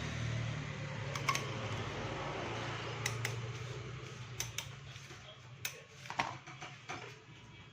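Scattered sharp clicks of hand tools and small metal parts being handled, about nine in all, over a low vehicle engine hum that fades away in the second half.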